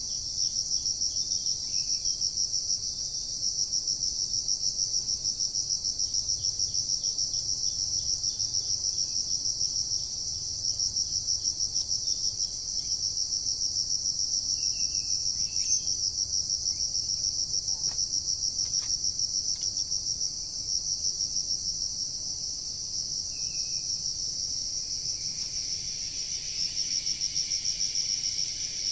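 Insects trilling in a steady, high-pitched chorus with a fast, even pulse, joined by a few faint short chirps about halfway through.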